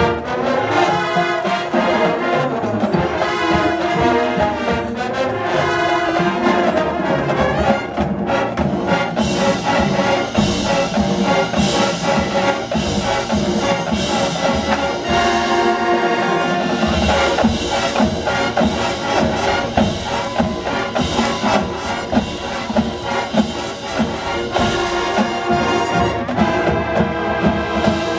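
High school marching band playing loud brass-led music, trombones and trumpets over a steady beat.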